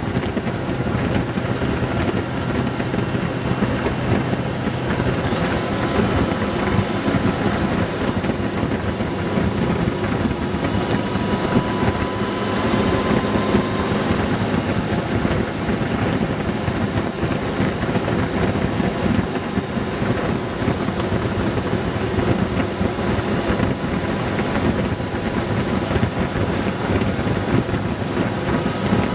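Honda Gold Wing 1800's flat-six engine running at cruising speed on the open road, mixed with steady wind rushing over the microphone.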